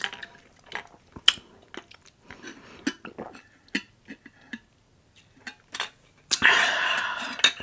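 Close-miked eating: scattered chewing smacks and mouth clicks with small clinks. About six and a half seconds in comes a sudden louder rush of noise that fades over about a second.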